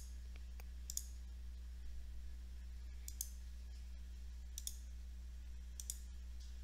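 Computer mouse clicks, about five spread a second or more apart, several of them a quick double tick, over a faint steady low hum.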